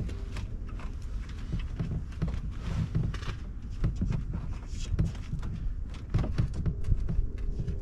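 Irregular light clicks and knocks of hands and parts being worked on a car, over a low rumble of wind on the microphone.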